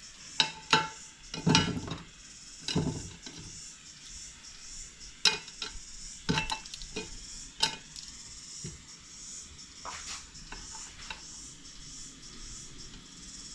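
Irregular metallic clicks, clinks and knocks of tools and wire being handled while a power cable is made up, a dozen or so, loudest in the first few seconds, over a steady high hiss.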